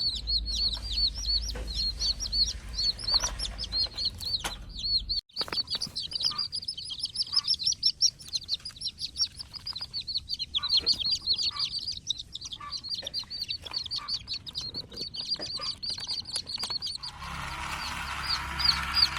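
A group of chicks peeping, a dense, continuous stream of short high chirps several per second. A rushing noise joins near the end.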